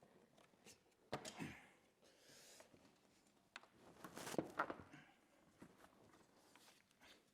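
Faint handling noises from ATV plastic panels and floorboard parts being fitted: a few sharp knocks and clicks with short scraping, the loudest about a second in and again around four seconds in.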